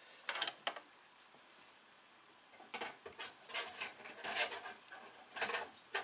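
Small hard parts clicking and clattering as sewing-machine presser feet and tools are handled during a presser-foot change: a few quick clicks near the start, then a few seconds of irregular rattling and clinking.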